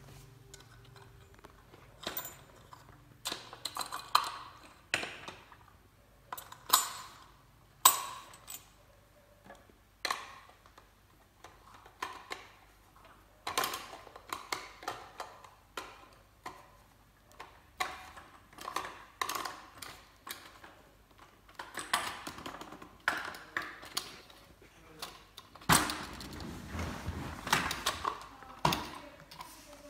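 Plastic and metal parts of a manual meat grinder being fitted together by hand: irregular clicks, knocks and rattles, with a longer rattling stretch near the end.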